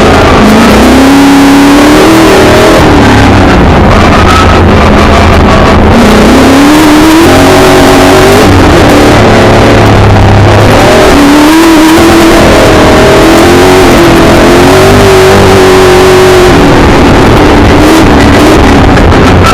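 Milner R5's 5-litre V8 racing engine heard from inside the car, loud, its pitch climbing and dropping several times as it accelerates and eases off, over a constant rush of noise.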